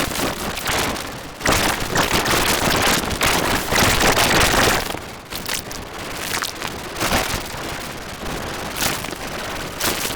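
Knuckle- and neck-cracking sound effect: a dense run of sharp pops and crackles, louder for about the first five seconds, then softer.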